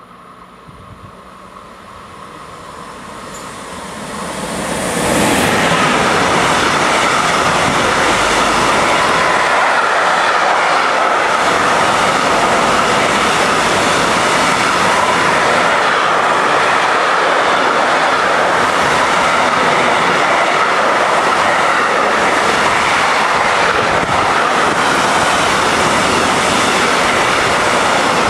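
A freight train approaching and passing at speed, headed by a DB Schenker class 185 electric locomotive and made up of pocket wagons carrying truck trailers. The sound builds over the first five seconds as the locomotive arrives. The wagons then roll past in a loud, steady rush of wheels on rail until the end.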